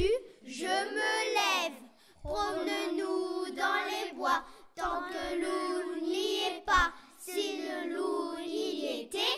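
Children singing a song in long held notes, four phrases of about two seconds each with short breaks between them.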